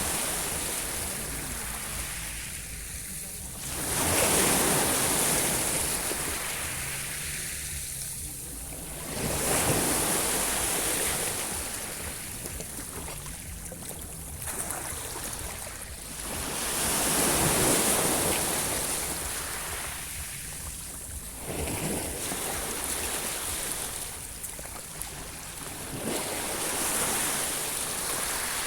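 Sea surf: waves rolling in, the wash swelling and fading again every few seconds.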